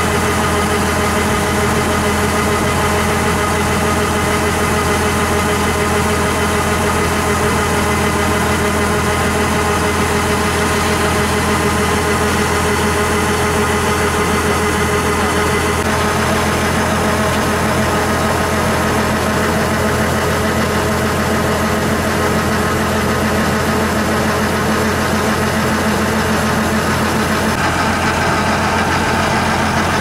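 Kubota DC70G combine harvester running steadily: a constant diesel drone with several steady whining tones from its driven machinery. The tone shifts slightly about halfway through and again near the end.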